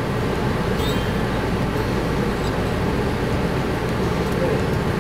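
Steady low rumbling hum of a running machine, with a few faint light clicks of handling.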